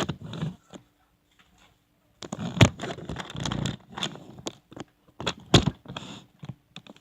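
Handling noise from the recording device being moved and turned, close to the microphone: irregular scrapes, rustling and clicks. There are two loud knocks, one about two and a half seconds in and one about five and a half seconds in, with a short quiet spell before the first.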